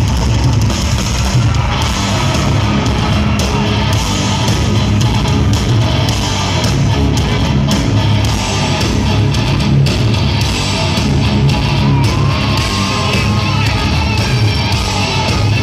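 Live rock band playing loud, with guitars and drums, heard over an arena sound system from the crowd.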